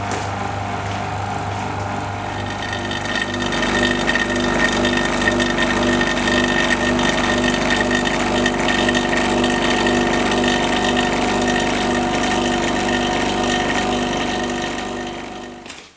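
Electric vacuum pump running steadily, pulling a vacuum through a filter flask for a slow vacuum filtration. About three seconds in the hum grows louder, with a repeating low pulse, and it fades away just before the end.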